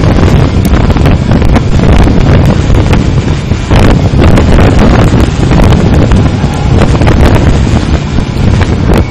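Loud, gusty wind noise battering the microphone of a camera riding on a moving Honda CB400 motorcycle at road speed.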